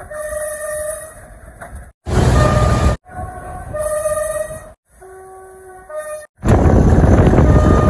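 Diesel locomotive horns sounding in a quick run of spliced clips, each a short blast on one or two steady tones, cut off abruptly between clips. Two of the clips are loud with engine and rail noise under the horn.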